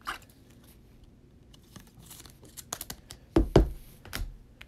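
Trading cards being handled and shuffled on a tabletop: light rustles and clicks, with two sharp knocks close together about three and a half seconds in and a softer one just after, as cards are set down.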